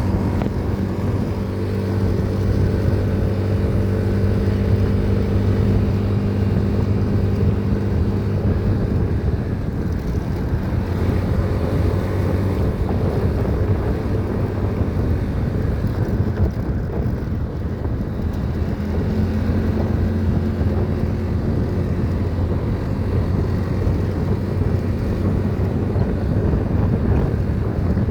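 A vehicle engine running steadily, a low hum that shifts slightly in pitch a few times, with wind buffeting the microphone.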